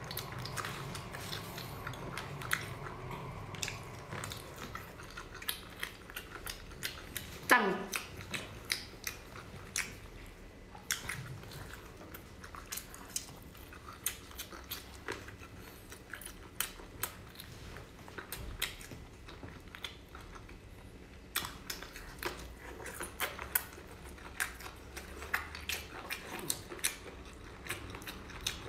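Close-miked eating of spicy seafood, octopus and prawns: chewing and biting, with many short sharp wet clicks and smacks. One loud sound falls steeply in pitch about seven and a half seconds in.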